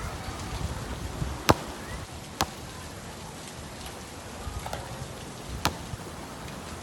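A basketball bouncing on an outdoor court: three sharp, separate hits spread a second or more apart, over a steady hiss.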